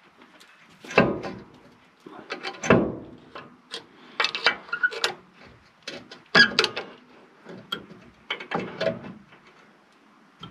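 Screwdriver or pry bar working on the front brake caliper hardware of an M1009 CUCV Blazer: irregular metal knocks, scrapes and clinks, with a handful of sharper strikes and brief ringing, as the caliper spacers are pried out to fit over the mounting boss.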